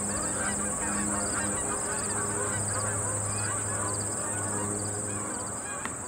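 A flock of geese honking and calling together in a dense overlapping chorus, over a steady high-pitched insect trill with regular chirps; the whole fades a little near the end.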